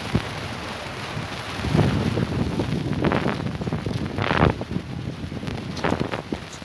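Heavy rainstorm with strong wind, the gusts buffeting the microphone in several louder bursts over a steady hiss of rain.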